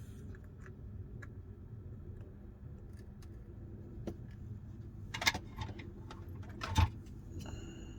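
Small scattered clicks and taps of a prying tool against a phone's glass back cover and frame as the back is worked open, with two louder sharp clicks about five and seven seconds in.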